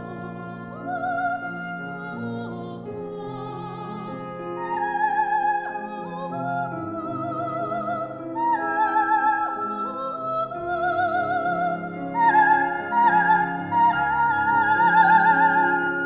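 Coloratura soprano singing an operatic line in a high register with wide vibrato, over instrumental accompaniment. The voice climbs to its highest and loudest notes in the second half.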